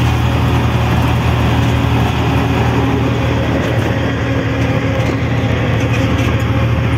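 Steady drone of an auto-rickshaw's small engine, heard from inside its open cabin, mixed with road and traffic noise from the vehicles around it.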